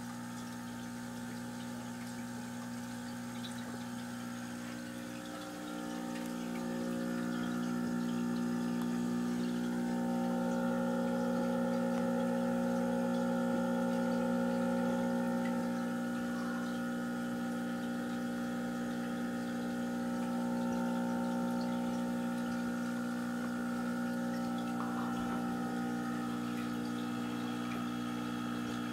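Aquarium pump giving a steady electric hum, with water bubbling from the tank's air stone; the hum grows louder about six seconds in.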